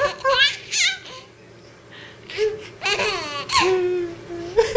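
Baby laughing in short giggly bursts, a brief lull, then laughing and babbling again, ending on one long drawn-out vocal note.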